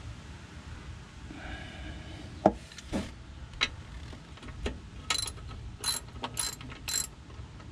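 Sharp metallic clicks from the socket wrench on the oil-pan drain plug as the plug is worked loose. The clicks come a few at a time at first, then about twice a second near the end.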